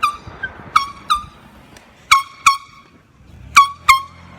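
Handheld air horn blasted in seven short, shrill toots: one at the start, then three quick pairs. Each toot dips briefly in pitch as it starts.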